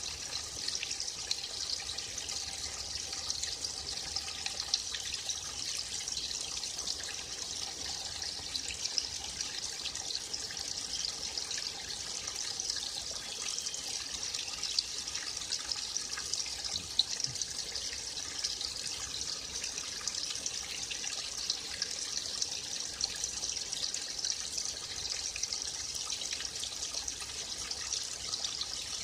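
Small forest stream trickling steadily over stones, with little splashes and drips scattered through the flow.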